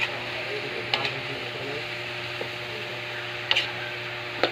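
Diced sponge gourd sizzling steadily as it sautés in a wok, with a metal spatula clinking and scraping against the pan a few times as it is stirred.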